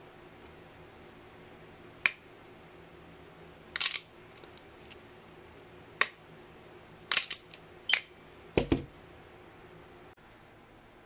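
Sharp metallic clicks of locking vise pliers being clamped, worked and released by hand, about six of them spaced a second or two apart, some in quick doubles. Near the end comes a heavier clunk as the pliers are set down on the workbench.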